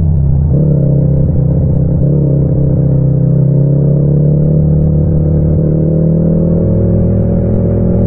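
Yamaha MT-07's 689 cc parallel-twin engine running under light throttle, its revs climbing slowly and steadily.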